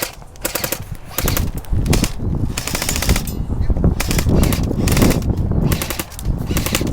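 Airsoft guns firing several short bursts of rapid full-auto fire, a fast rattle of clicks repeated about six times.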